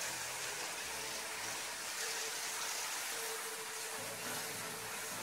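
Heavy hail falling on pavement: a dense, steady hiss of countless small hailstones striking the ground.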